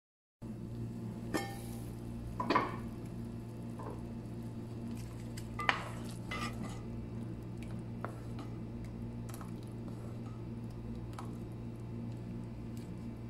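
A spoon stirring thick kadhi in a cooking pot, with a few short knocks and scrapes of the spoon against the pot over a steady low hum.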